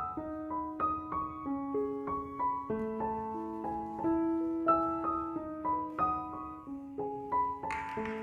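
Background piano music: a slow melody of single notes over lower held notes.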